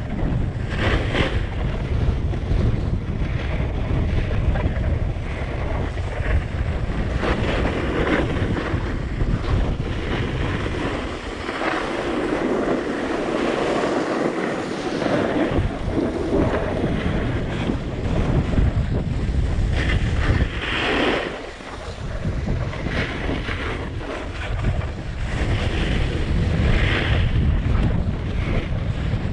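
Wind buffeting a GoPro action camera's microphone during a snowboard descent, a steady low rumble, over the hiss and scrape of the snowboard sliding and carving on packed snow, with louder scraping surges in the turns. The wind rumble eases for a few seconds around the middle.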